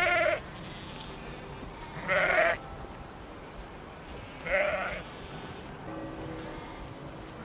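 Sheep bleating three times, about two seconds apart, each a short wavering bleat, over soft background music.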